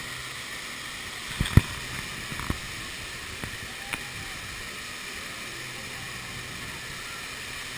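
Steady hiss of fountain water jets spraying, heard from a swing seat passing close beside them, with a few sharp clicks, the loudest about one and a half seconds in and others near two and a half and four seconds.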